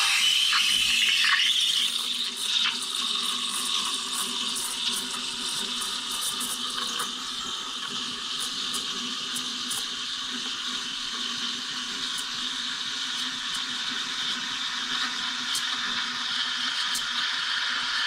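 Anza espresso machine's steam wand steaming milk in a jug: a steady hiss that starts abruptly and is loudest in the first couple of seconds, with scattered light ticks later on.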